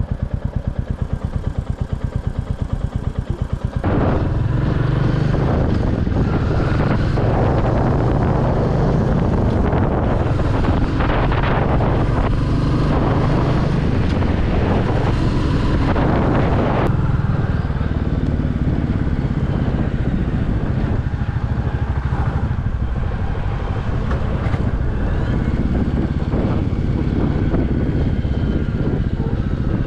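Royal Enfield Classic 350's single-cylinder engine idling with an even beat. About four seconds in it pulls away and keeps running louder under way.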